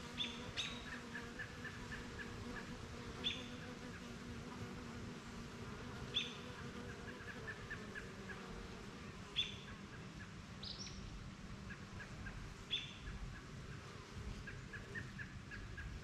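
Honeybees flying around a wooden hive, a steady low buzzing hum. Over it a bird gives a short, sharp call about every three seconds, with runs of quick chirping notes in between.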